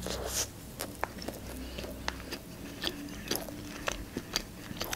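Close-up eating sounds: a bite into a soft hot dog bun with lettuce, then chewing, heard as scattered wet mouth clicks and smacks.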